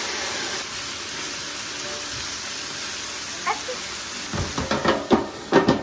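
Marinated chicken pieces sizzling in hot sesame oil on an electric griddle, a steady spitting hiss as the meat hits the hot plate. Near the end, a run of louder clacks and knocks as metal tongs spread the pieces across the plate.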